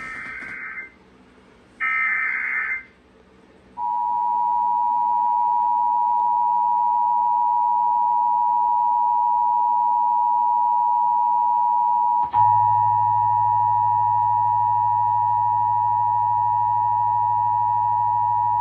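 Emergency Alert System test on FM radio heard through the radio's speaker: two short buzzing bursts of SAME header data, then the steady two-tone EAS attention signal. About twelve seconds in there is a click, and a low hum joins the tone.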